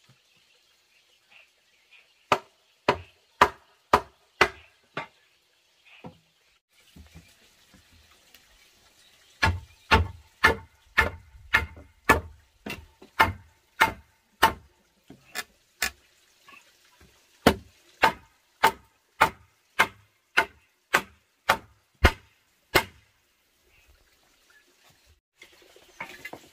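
Hammer blows on wooden joinery, knocking timber rails into mortise-and-tenon joints. Sharp, even strikes about two a second come in three runs: a short run of six early on, a longer run with heavier, deeper thuds from about ten seconds in, and a third run after a short pause.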